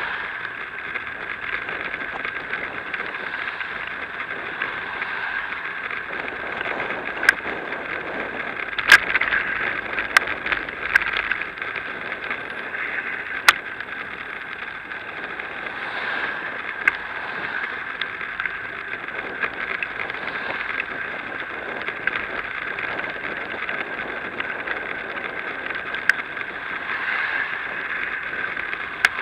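Riding noise from a moving bicycle as picked up by an action camera: a steady rush of wind and road noise, with a few sharp clicks and rattles from bumps in the road.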